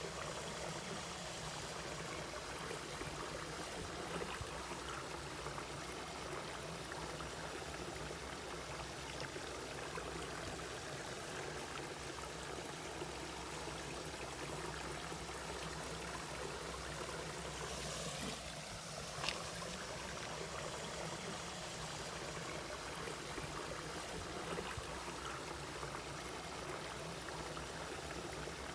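Mountain valley stream flowing steadily, with a brief sharper splash-like sound about two-thirds of the way in.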